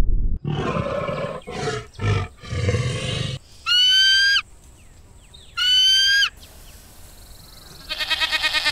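A rough, roar-like growl in three bursts, then two high, ringing eagle calls, each under a second long; near the end a sheep bleats with a wavering tremble.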